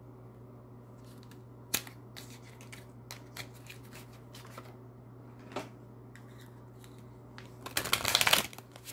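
Oracle cards from a Spirit of the Animals deck being handled: scattered light clicks and a sharp tap, then a quick, loud shuffle of the deck near the end. A steady low hum sits underneath.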